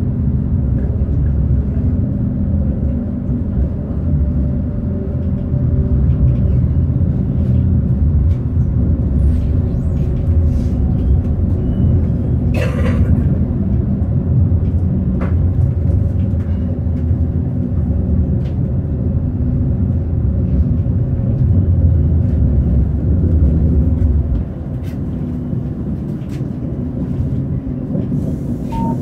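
Tram running along its rails, heard from on board: a steady low rumble with one brief sharp noise a little before halfway. The rumble drops somewhat in level a few seconds before the end.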